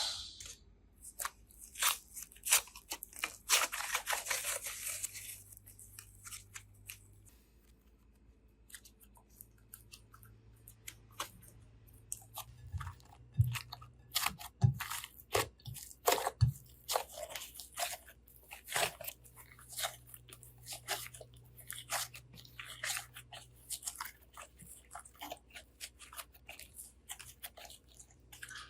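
Slime being squeezed and pressed by hand, making a run of crackling clicks and pops. There is a crinkly hiss a couple of seconds in, a short pause, then the clicking comes thick again.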